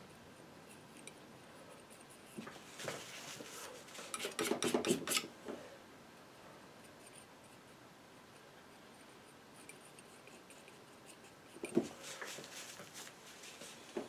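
Metal painting knife scraping and tapping thick oil paint on a panel, in two spells of quick scrapes and ticks: a longer, louder one a few seconds in and a shorter one near the end.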